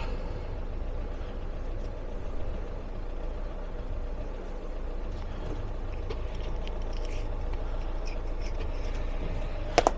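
A steady low mechanical hum, like an engine running, with a few faint clicks partway through and two sharp knocks near the end.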